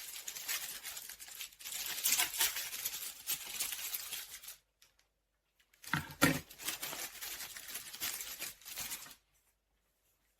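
Parcel packaging being torn and crinkled by hand, in two stretches with a silent pause of about a second between them.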